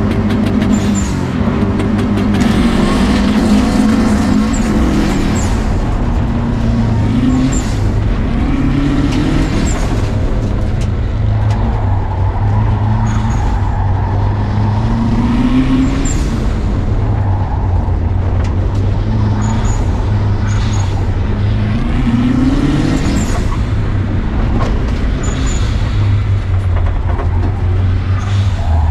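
Subaru WRX rally car's turbocharged flat-four engine under hard acceleration on a loose dirt course, climbing in pitch in several pulls through the gears, with tyre and gravel noise and frequent sharp clicks throughout.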